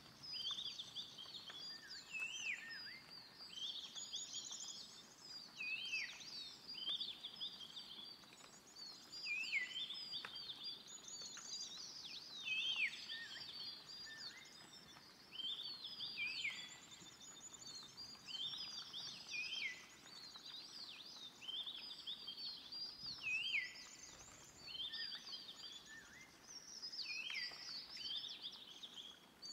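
Birds chirping and singing, a dense run of short overlapping calls, many sliding down in pitch, over a faint steady hiss.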